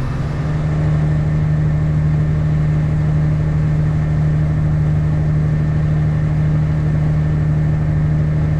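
Tractor engine running steadily, heard from inside the cab, its pitch and level rising a little right at the start and then holding even.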